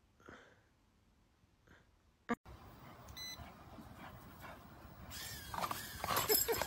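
A small toy quadcopter drone beeps, then about five seconds in its propellers start with a high whir that grows louder. Dogs make excited noises near the end.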